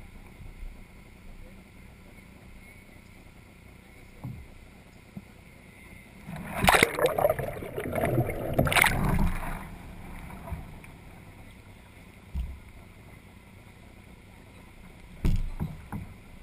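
Water splashing and rushing for about three seconds in the middle as a kayak is rolled over and brought back upright, with a few dull knocks before and after.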